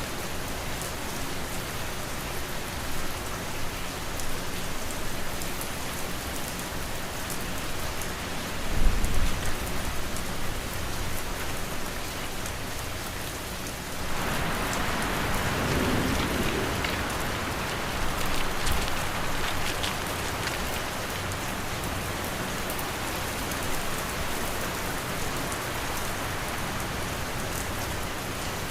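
Steady rain ambience, a dense even patter of drops. About nine seconds in there is a brief low thump, and about halfway through the rain swells louder for several seconds before settling back.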